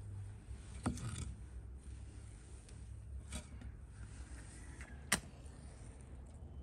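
Pieces of split firewood knocking together as they are stacked upright inside a tandoor: a few sharp wooden clacks, the loudest about five seconds in, over a low steady rumble.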